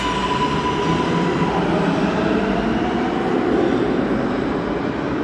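An R143 subway train pulls out and rolls away down the tunnel, its wheels rumbling steadily on the rails. A steady high whine stops about a second and a half in.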